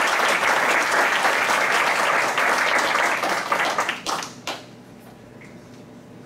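Audience applauding, a dense stretch of clapping that dies away after about four seconds into a few last separate claps.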